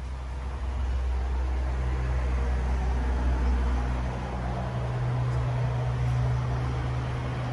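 A low, steady engine hum from an unseen motor, its pitch stepping up about halfway through.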